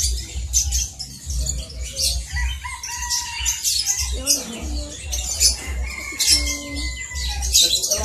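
Many caged birds chirping and tweeting at once, a dense run of short high chirps with a few longer whistled notes. A low thumping runs underneath.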